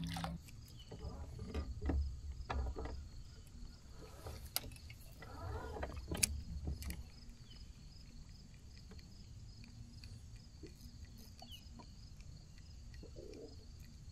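Faint rod-and-reel handling sounds from an angler with a spinning rod: a few sharp clicks and knocks with a low rumble over the first several seconds, then a quieter stretch as he reels.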